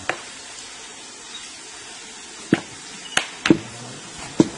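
A monkey pounding something on a wooden log: about five sharp, irregularly spaced knocks, most of them in the second half, over a steady faint hiss.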